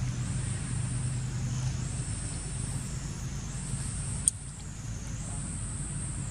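Outdoor background: a steady low rumble like distant road traffic, under a high-pitched drone that swells and dips every two seconds or so. One sharp click about four seconds in.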